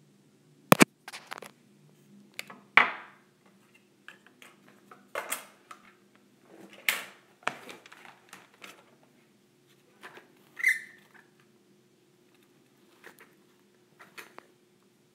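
Moulded orchid petal veiners being handled and set down on a mat: irregular knocks, taps and rubbing sounds. The loudest is a sharp double knock about a second in, and there is a short squeak about two-thirds of the way through.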